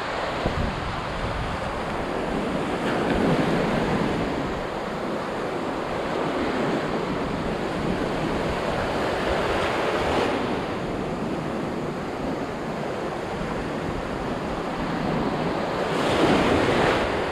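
Ocean surf breaking and washing up a sandy beach, swelling louder three times, about every six seconds as waves come in, with wind rumbling on the microphone.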